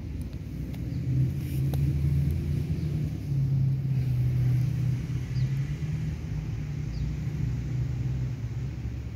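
A steady low rumble, loudest in the middle few seconds.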